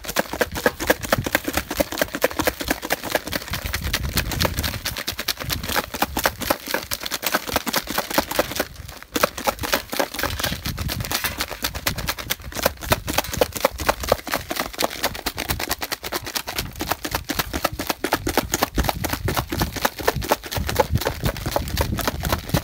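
Fried chicken wings being shaken with salt and chili inside a lidded plastic pitcher: a rapid, continuous rattling clatter of the wings knocking against the plastic walls, with a brief pause about nine seconds in.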